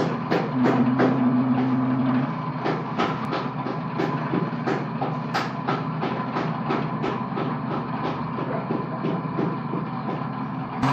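Background music: a steady low drone under a fast, even percussion beat of about three to four strokes a second.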